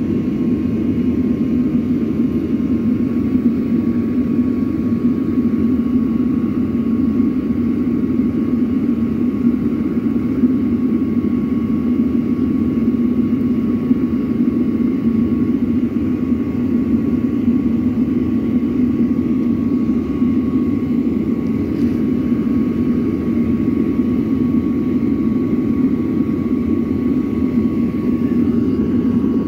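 Homemade refractory furnace running under forced air fed through its side pipe: a steady, even roar with a thin steady whine above it.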